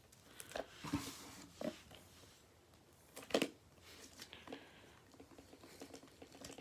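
A few light clicks and knocks from a small tool kit case being handled and opened, the loudest about three and a half seconds in.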